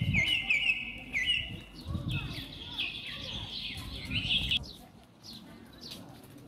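Birds calling: a quick run of shrill, repeated chirps that stops about four and a half seconds in, with fainter chirps after.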